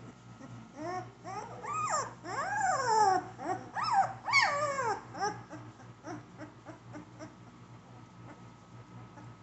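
Doberman puppy whining and yelping: a run of high cries that rise and fall in pitch, loudest about three to four and a half seconds in, then trailing off into short, fainter whimpers.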